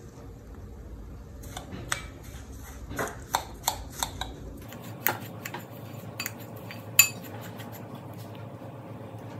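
Metal spoon stirring graham cracker crumbs and melted butter in a glass bowl, with irregular clinks of the spoon against the glass. The loudest clink comes about two-thirds of the way through.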